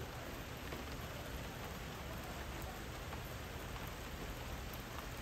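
Rain falling steadily, an even hiss with no breaks or single events standing out.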